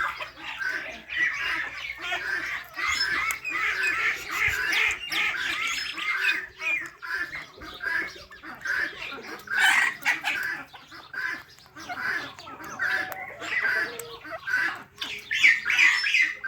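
Parrot chirping and squawking: a steady stream of short, quick calls with no pause, one louder squawk a little past the middle.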